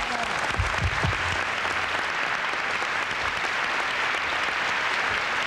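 Audience applauding steadily, a dense even clapping from a large crowd.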